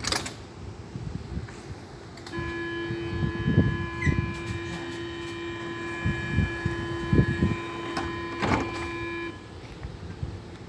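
Door-closing warning of a Bombardier Movia C30 metro train: a steady electronic tone of several pitches that starts about two seconds in and holds for about seven seconds while the sliding doors close. A thump comes near its end.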